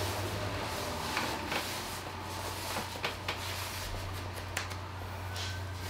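Thick nylon stocking being pulled up a leg by hand: soft rustling and scratching of the fabric, with a few light clicks, over a steady low hum.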